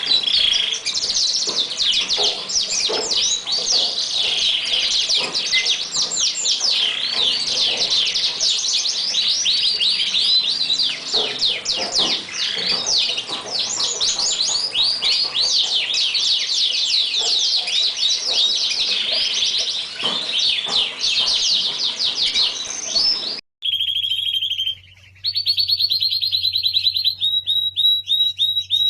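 Lancashire canary singing a long, continuous song of rapid trills and warbles. Near the end the sound cuts abruptly to another take, where repeated trilled notes play over a low hum.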